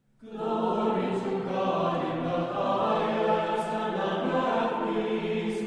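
Choir singing a slow chant, many voices holding long sustained notes; it fades in just after the start.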